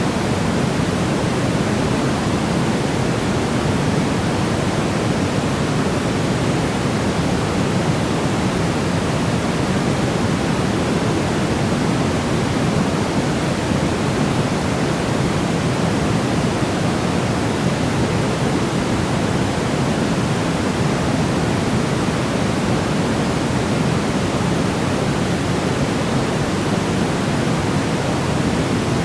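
Continuous white noise for baby sleep: a steady, even hiss that is heavier in the low end than the high, with no changes or breaks.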